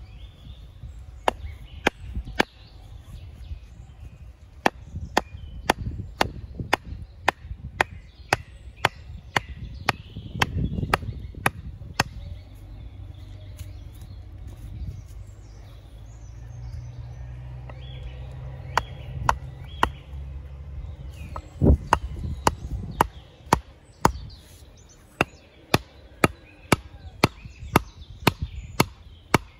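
Axe chopping wood in a quick series of sharp strokes, roughly two a second, easing off for several seconds midway before picking up again.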